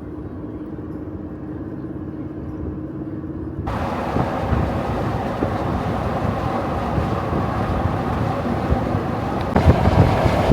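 A vehicle's engine running with a steady low hum, then, from about four seconds in, a sudden change to a loud rush of wind and road noise that turns louder and gustier near the end.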